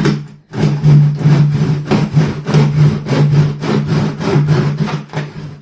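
Small hand saw cutting through the MDF top of an Ikea table in quick back-and-forth strokes, about two to three a second, after a brief pause near the start.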